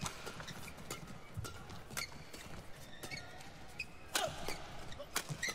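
Badminton rally: sharp racket strikes on the shuttlecock about once a second, with short shoe squeaks on the court floor and a murmur from the arena crowd.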